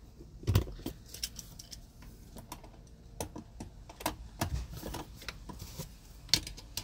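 Ratchet with a long socket extension clicking and clinking irregularly as a 10 mm nut is worked loose, with a dull knock about half a second in.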